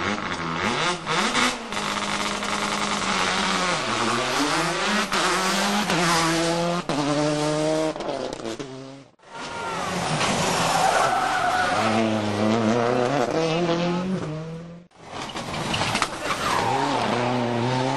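Turbocharged four-cylinder World Rally Cars running hard, engines revving up and dropping back as they change gear. The sound cuts out and starts again twice, about 9 and 15 seconds in.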